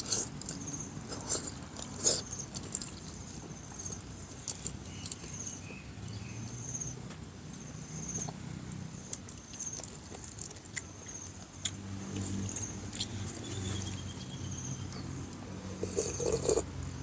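Close-up eating sounds: chewing, lip smacks and small mouth clicks as a man eats stewed grouper head by hand. Near the end comes a sip of soup from the bowl. A short high chirp repeats steadily in the background.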